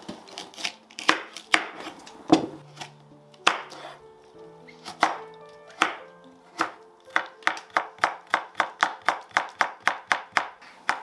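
Kitchen knife cutting carrots on a cutting board: single, unevenly spaced cuts at first, then from about seven seconds in a fast, even chopping of about four strokes a second.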